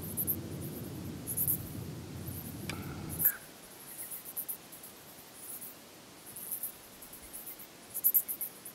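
Crickets chirping in clusters of very high-pitched pulses that repeat through the evening air. A low rumble underlies the first three seconds and cuts off abruptly.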